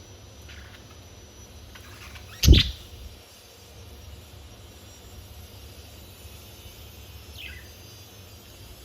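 A few sparse budgerigar chirps, the last a single call falling in pitch, over a low steady hum, with one loud bump about two and a half seconds in.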